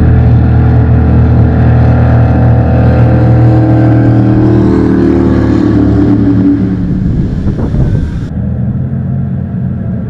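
Two racing jet sprint boats running flat out, a loud engine drone with several pitched lines. The pitch climbs as they close in, then the sound breaks up and fades after they pass beneath, about seven seconds in.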